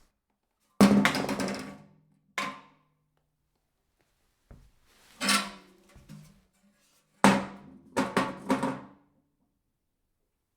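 A series of about six hard knocks on a resonant object at uneven intervals, each with a short pitched ring; the first, about a second in, is the loudest.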